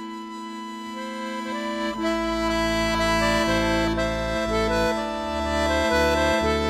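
Accordion playing a tune: a held chord, then a melody of stepping notes with low bass chords joining in about two seconds in.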